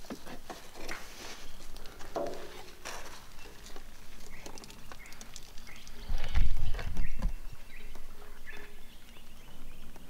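Rustling and scattered small clicks of hands handling wet plastic and metal debris from a wrecked dishwasher, with a low rumble about six seconds in.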